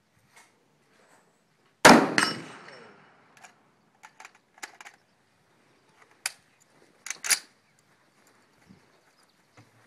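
A single shot from an M1A rifle in 7.62 NATO about two seconds in, with a ringing tail that dies away over about a second. After it come scattered sharp clicks and knocks, two of them louder about three and five seconds later.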